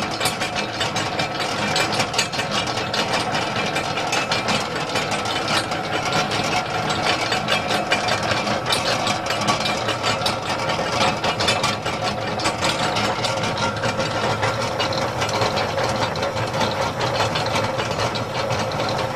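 Univex 20-quart belt-driven mixer running steadily at low speed: a steady motor and belt-drive hum with a dense, rapid rattling tick.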